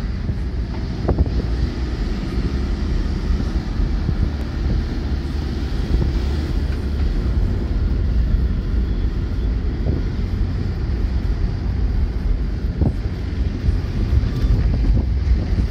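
Steady low rumble of a vehicle driving, with wind buffeting the microphone and a few brief knocks.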